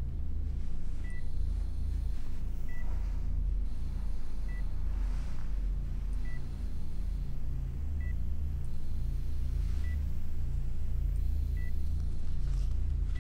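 Bedside patient monitor beeping steadily, a short high beep about every 1.8 seconds, over a low steady hum.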